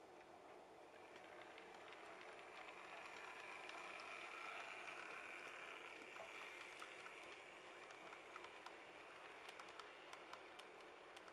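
Model railway pannier tank locomotive and its coaches running along the track: a faint, steady whirr from the motor and wheels that swells about halfway through and then eases. In the second half, light clicks come in scattered ticks as the wheels pass over the rail joints.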